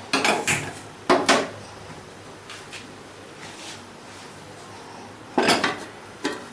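Cooking pot and lid knocking and clanking as they are handled: a few quick knocks near the start, two more about a second in, and a louder clank with a small tap after it near the end.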